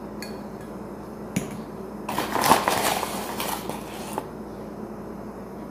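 A paper flour bag rustling and crinkling for about two seconds as a metal spoon scoops flour out of it, after a couple of light clicks of the spoon.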